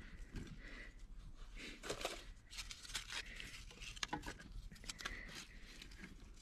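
Small wood fire of dry twigs and rotten wood crackling and snapping as it catches, with irregular quick pops.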